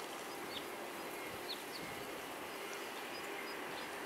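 Quiet outdoor background with a faint steady hum and a few short, high chirps of small birds scattered through it.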